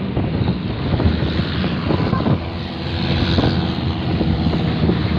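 Truck engine running steadily at road speed, heard from the open cargo bed, with wind noise and a few short knocks as the truck rolls over the road.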